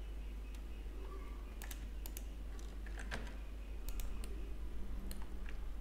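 Computer keyboard keys and mouse buttons clicking irregularly, a few clicks a second, over a steady low electrical hum.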